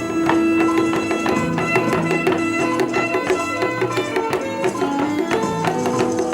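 Music: held instrumental notes over quick, busy percussion strokes, with no singing in this stretch.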